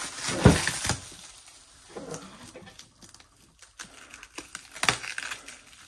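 Plastic packing wrap crinkling and rustling as the wrapped package is handled, loudest in the first second. This is followed by small scratches and taps as a pocket knife works at the wrapping.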